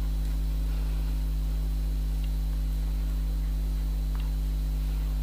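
Steady low electrical mains hum, with a couple of faint ticks of knitting needles about two and four seconds in.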